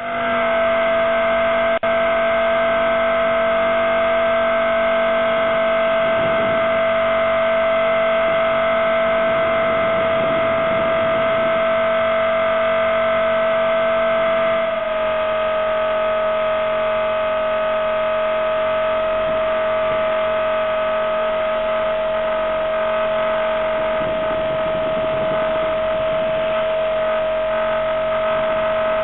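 Electric motor and rotor of a Blade 400 RC helicopter heard from its onboard camera: a steady high whine over a lower hum, dropping slightly in pitch and level about halfway through.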